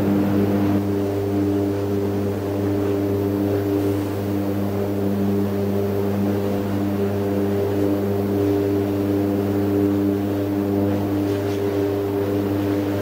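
Electric arc furnace running: a steady loud electrical hum with higher tones that cut in and out unevenly, over a rushing noise.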